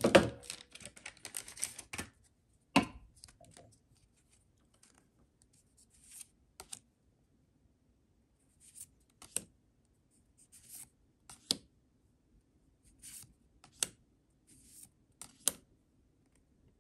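Trading cards being handled and flipped through one by one: rustling and crinkling for about the first two seconds, then short, sharp card snaps and slides every second or two.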